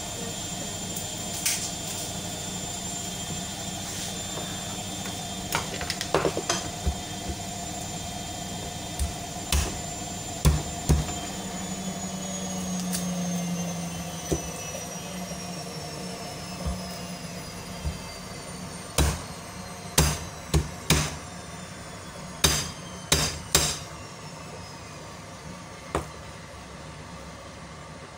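Irregular sharp knocks and taps from kitchen work, several in quick clusters and more frequent in the second half, over a steady low hum.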